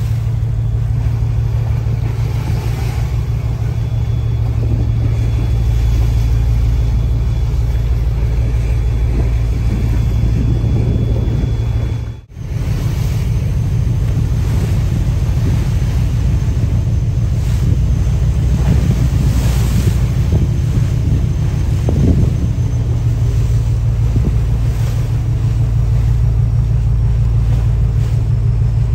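Small boat's engine running steadily underway, a low rumble and hum, with wind buffeting the microphone and the sea rushing past the hull. The sound cuts out briefly about twelve seconds in.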